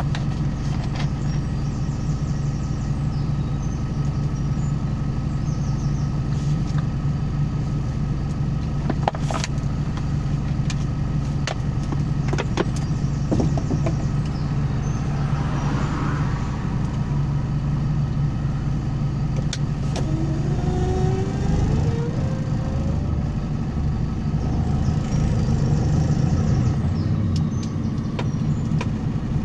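Truck engine idling steadily, heard from inside the cab while stuck in slow traffic. About two-thirds of the way in a rising whine comes in, and the engine gets a little louder near the end as the truck creeps forward.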